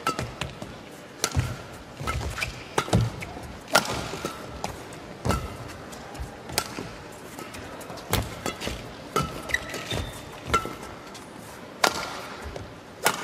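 Badminton rally: rackets strike the shuttlecock back and forth, one sharp hit about every second and a half. Short shoe squeaks on the court floor come between the hits.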